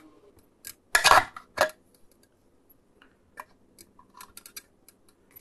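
Small plastic posts being snapped off inside a Commodore 64 power supply case: sharp cracks about a second in, then scattered light clicks and taps of plastic.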